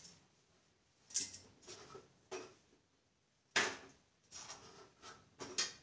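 Metal tongs clinking and scraping against an iron tawa as a roti is turned and pressed. About six short clatters, the loudest a little past halfway.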